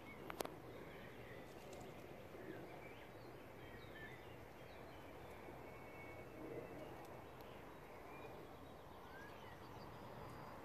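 Faint outdoor ambience with scattered distant bird chirps, short high calls that come and go throughout. Two sharp clicks sound right at the start.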